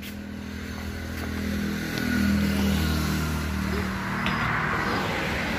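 Street traffic: a passing road vehicle's engine hum grows to its loudest about two seconds in and fades, leaving a general hiss of traffic.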